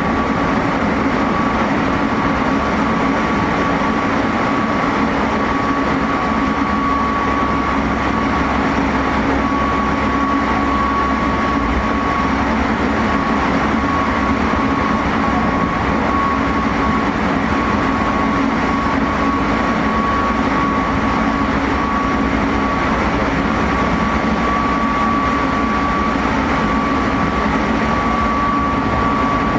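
Interior running sound of a Meitetsu 3500 series electric train (GTO-VVVF car) travelling between stations. Wheel and rail noise runs under a steady, high-pitched tone, with no rise or fall in pitch.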